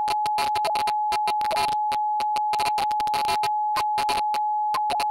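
A telephone line tone: one steady, unbroken beep-like pitch, overlaid with irregular bursts of crackling static, as on a call that is breaking up.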